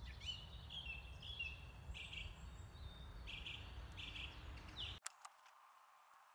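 A small songbird singing outdoors in repeated short whistled phrases, some with falling notes, over a low rumble of background noise. Both stop abruptly about five seconds in, leaving only faint clicks.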